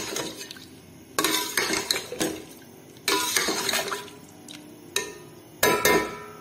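Metal ladle stirring chopped carrots through milk in a metal pot, scraping and clinking against the pot in three bouts of strokes, with the liquid sloshing.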